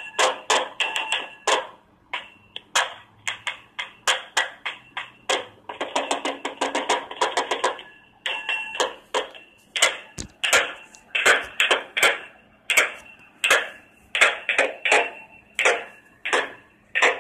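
A run of sharp knocks on a small hard object, about two or three a second and irregular, each one ringing briefly at the same couple of pitches. There is a denser rattling flurry about six seconds in.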